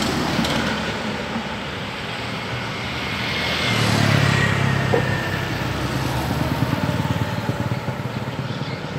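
Road traffic running by on a town street; the noise swells about four seconds in as a vehicle passes close with a falling pitch, and a motorcycle goes by near the end.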